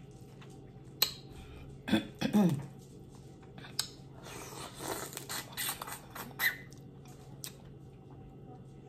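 Close-miked eating sounds from boiled crawfish: a few sharp clicks of shells snapping, then a run of short wet sucking and chewing noises. A brief pitched vocal sound, like an appreciative 'mm', comes about two seconds in.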